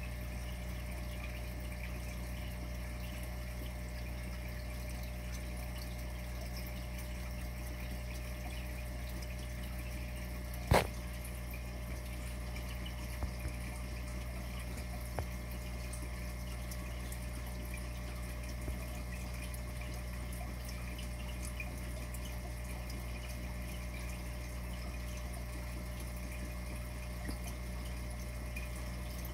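Reef aquarium's pumps and water circulation running with a steady hum and wash of water. A single sharp click about eleven seconds in, with a few faint ticks shortly after.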